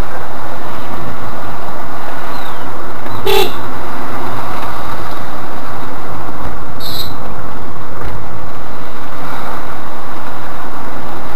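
Loud, steady road and engine noise inside a Škoda Rapid 1.6 MPI's cabin as it drives down a winding hill road, with one short horn toot about three seconds in.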